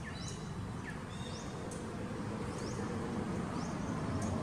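Birds chirping in short, high, upward-sweeping notes, about once or twice a second, over a steady low rumble.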